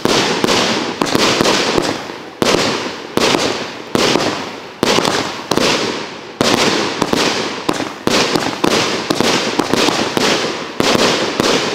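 Consumer firework cake firing a rapid string of shots, about two a second, each bang trailing off into crackle as red and white crackling stars burst overhead; the volley dies away near the end.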